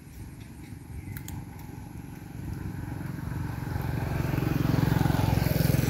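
A motor vehicle engine running, growing steadily louder from about two and a half seconds in as it draws closer.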